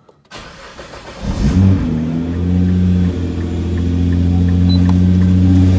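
Nissan GT-R engine starting: the starter cranks briefly, the engine catches with a short rev flare about a second and a half in, then settles into a steady idle.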